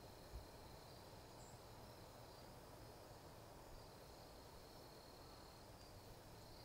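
Near silence: faint outdoor ambience with a thin, steady high-pitched drone like distant insects, and one soft low bump about a third of a second in.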